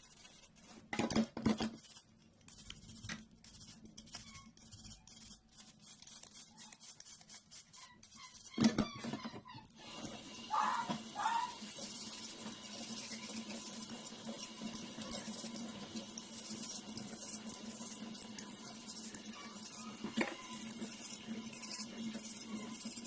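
Scattered clicks and knocks of the dishwasher's plastic filter being handled. About ten seconds in, a tap starts running steadily as the filter is rinsed.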